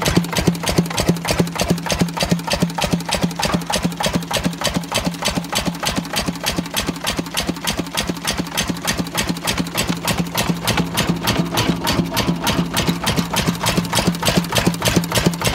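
Lister CS single-cylinder stationary diesel engine running steadily, with a rapid, even beat of firing strokes and a steady low hum beneath them.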